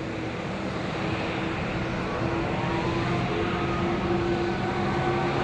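Boeing 777X's GE9X turbofan engines running at taxi power as the jet rolls by: a steady jet whine and rumble with a held tone, growing slightly louder.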